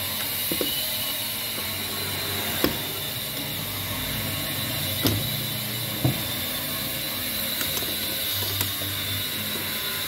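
A few sharp clicks and knocks from an aluminium pannier box's quick-release lock and mounting as a key is turned and the box is worked loose from its steel bracket, over a steady background hum of workshop machinery.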